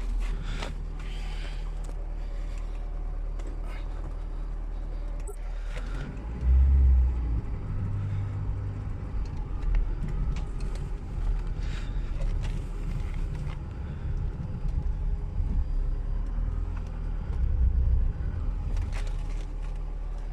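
Lada Niva's four-cylinder petrol engine running steadily with a low hum, swelling louder briefly about six and a half seconds in and again near the end.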